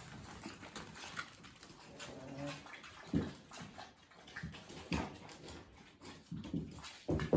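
Papillon puppies playing and scuffling on a hard floor: soft puppy vocal sounds with a few short knocks, the loudest near the end.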